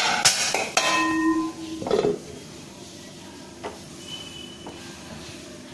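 A metal pan lid clanking and ringing as it is set onto a pan of hot oil and corn kernels, several sharp knocks in the first two seconds, then a faint steady sizzle of the oil with one light clink a little later.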